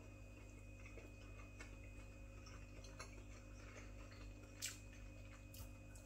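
Near silence, with a few faint, irregular clicks of someone chewing a cooked beef burger; the clearest comes about four and a half seconds in.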